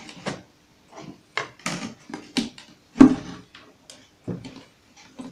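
Knocks and clicks from the wooden back panel of a small home-theater subwoofer cabinet being unscrewed and pulled free, with the amplifier board mounted on it. The loudest knock comes about three seconds in.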